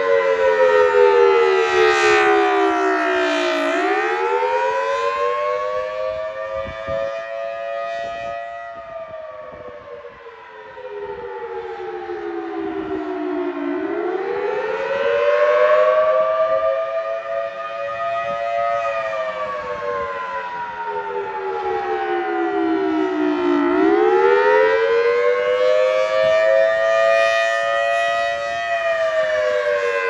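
Federal Signal Thunderbolt 1000T outdoor warning siren sounding a wail for its routine monthly test. The pitch rises and falls smoothly in long cycles of about ten seconds, and the volume swells and fades.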